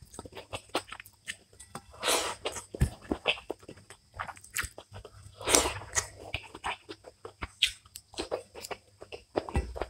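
Close-up eating sounds: fingers squishing and mixing rice with curry on a plate, with many short wet clicks and smacks, then mouth chewing near the end. Two longer, louder wet stretches stand out, about two seconds in and about five and a half seconds in.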